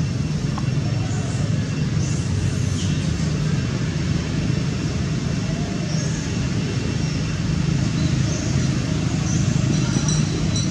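Steady low background rumble of road traffic, with a few faint short high chirps over it.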